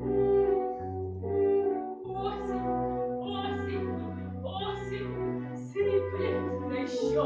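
Musical accompaniment with held chords over a bass line that changes note about every half second, joined by a high voice singing from about two seconds in.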